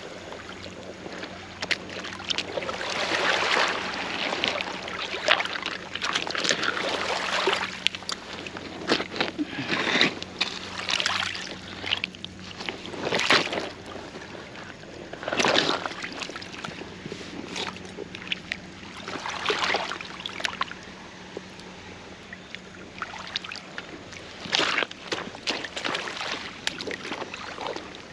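Water sloshing and splashing in irregular swishes, with scattered sharp knocks and rustles mixed in, over a faint steady hum.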